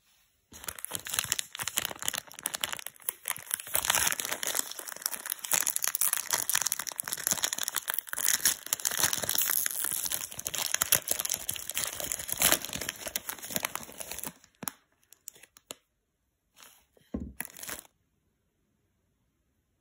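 The plastic wrapper of a Harry Potter Chocolate Frog crinkles and tears as it is opened by hand. It is a dense crackle for about fourteen seconds, then a few brief rustles that stop about two seconds before the end.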